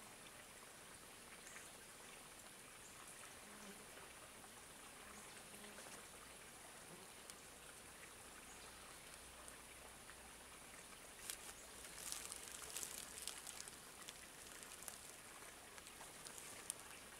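Near silence: faint outdoor room tone with a steady soft hiss, and a short run of small crackling ticks about eleven to fourteen seconds in.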